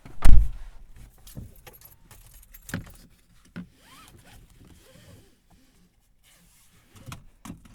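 Inside the cabin of a 2018 Honda CR-V before the drive: a loud, heavy thump just after the start, then scattered clicks and a jingle of keys, with quiet stretches in between.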